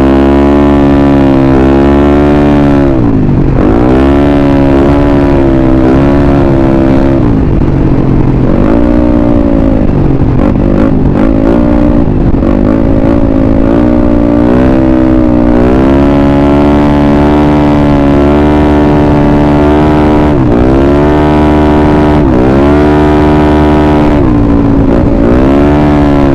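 Yamaha Mio Sporty scooter's small single-cylinder four-stroke engine running hard at speed. Its pitch drops sharply when the throttle is eased off, then climbs back as it accelerates again, several times.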